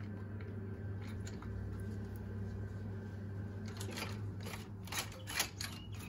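Inner knob of a Welock Touch41 smart lock cylinder being turned by hand: a quick run of sharp mechanical clicks starts about four seconds in, over a steady low hum.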